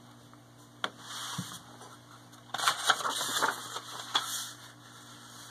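Pages of a picture book being turned by hand: a single click about a second in, then about two seconds of paper rustling and flapping.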